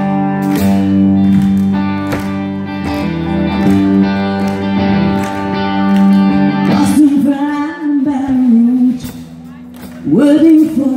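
Live country band playing, with guitar and pedal steel holding steady chords. About seven seconds in, a woman's singing voice comes in over the band, and it is louder from about ten seconds.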